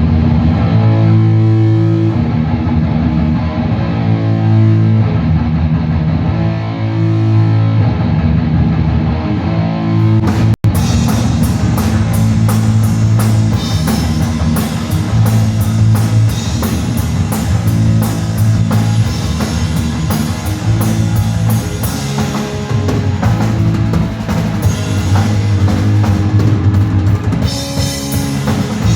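Live heavy metal band playing a distorted electric guitar riff of held low notes over bass and drums. The sound cuts out for an instant about ten seconds in, and after that the full band drives on with steady cymbal hits.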